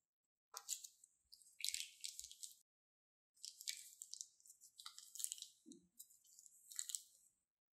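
Red slime squeezed out of a plastic piping bag: wet squishing and crackling of the bag and slime, in two stretches with a brief pause between.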